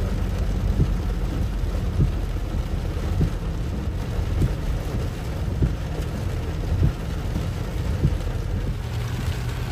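Heavy rain hitting a car's windshield and roof, heard from inside the cabin, with scattered sharp drop ticks over the steady low rumble of the car running slowly in traffic.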